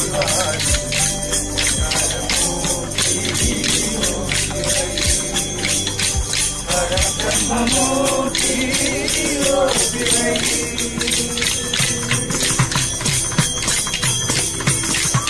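Devotional song sung by a small group to a steady, fast rhythm of a hand-held frame drum with jingles; the singing voice is clearest in the middle.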